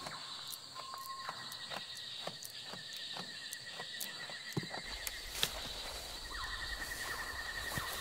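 Rainforest ambience: a steady high-pitched insect chorus in pulsing layers, with scattered sharp clicks and a short whistled note about a second in. A second pulsing buzz grows louder near the end, over a low rumble that starts midway.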